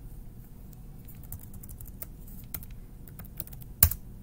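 Typing on a computer keyboard: a run of irregular key clicks, with one sharper, louder click near the end.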